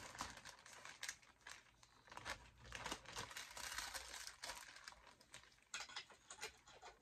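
Faint crinkling and rustling of a shipping package being cut open with scissors and handled, with scattered small clicks and snips.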